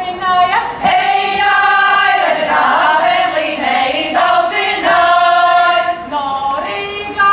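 Women's folklore choir singing a Latvian folk song together, long held notes between shorter phrases.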